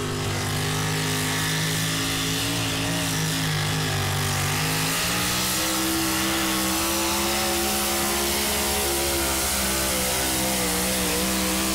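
Pickup pull truck's engine running hard under load as it drags the weight-transfer sled down the track. The engine note steps up about five seconds in and then holds high and steady.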